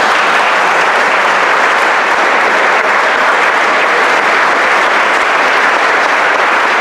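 Audience applauding: dense, steady clapping from many hands, loud and unbroken throughout.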